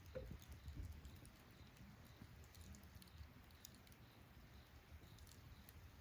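Wood campfire crackling faintly, with a few small scattered pops and clicks.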